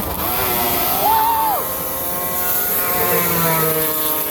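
Racing snowmobile engines at high revs: one sled's whine rises to a loud peak about a second in and drops away, then other engines hold a steadier, slowly falling drone.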